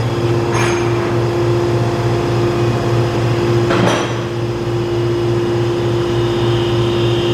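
Takisawa CNC lathe powered up with its spindle stopped, giving a steady low hum with a constant mid-pitched tone. Two short whooshing swells come about half a second and about four seconds in.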